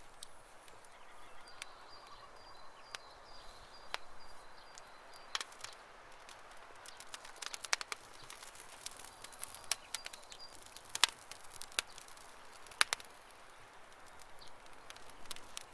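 Wood campfire crackling, with irregular sharp pops and snaps over a soft hiss; the loudest pops come about eleven and thirteen seconds in. A faint high steady tone is heard for a few seconds near the start and again briefly past halfway.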